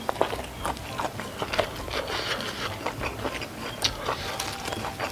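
Close-miked chewing of a mouthful of rice and sausage: a steady run of small wet mouth clicks and smacks, several a second, with fingers gathering rice on a banana leaf.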